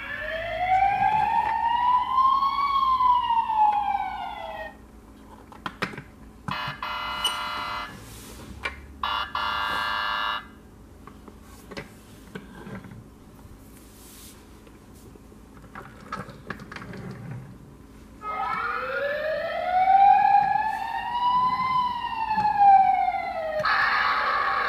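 Toy police car's electronic siren, a single rising-and-falling wail played twice, with shorter electronic sound effects and a few clicks between. Near the end a steady electronic alarm tone starts.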